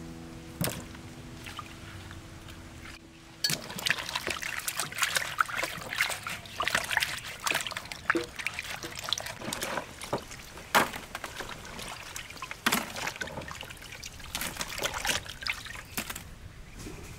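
Water splashing and sloshing in a plastic basin as gloved hands rub and swish peeled sweet potatoes and carrots to wash them. The splashing is irregular, starts about three and a half seconds in and stops near the end.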